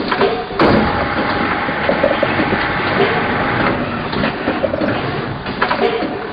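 Pot transplanter machine running, with mechanical clatter and knocks. A louder hiss with a steady whine starts just over half a second in and stops about three seconds later.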